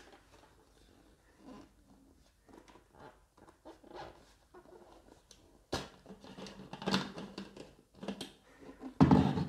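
Handling noise from a plastic blender jug and its black blade base being turned over in the hands: soft clicks and rubbing at first, then busier knocks and scrapes of plastic from about the middle on. Near the end comes the loudest burst of plastic clatter and creaking, as the hands work at the blade base.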